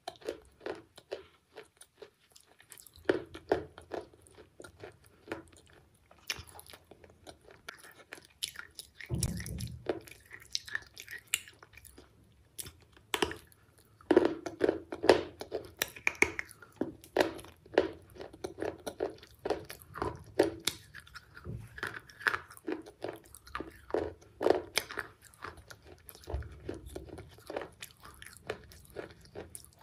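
Close-up sounds of a person biting into and chewing food: many irregular wet clicks and mouth noises, with a busier stretch of chewing from about halfway in.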